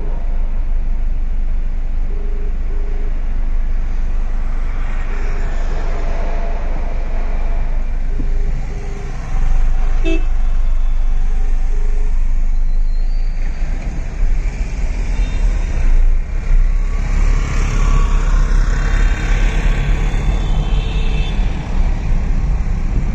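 Busy city road traffic: engines running in a dense rumble, with short horn toots, several in quick pairs, through the first half. The traffic noise grows louder about nine seconds in.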